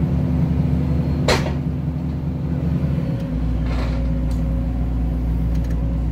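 Hydraulic excavator's diesel engine running under load, heard from inside the cab. A sharp metallic clank comes about a second in, and about three seconds in the engine note shifts to a deeper, steadier hum.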